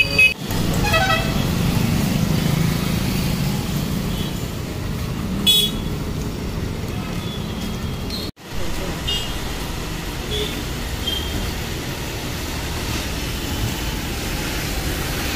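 Road traffic at a busy junction: a steady rumble of engines and road noise, with a short horn toot about five and a half seconds in and a few fainter horns later. The sound cuts out abruptly for an instant about eight seconds in.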